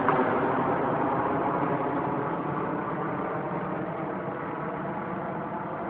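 Jet airliner climbing away after take-off at full power: a steady engine roar with a hum of fan tones running through it, fading gradually as it gets farther away.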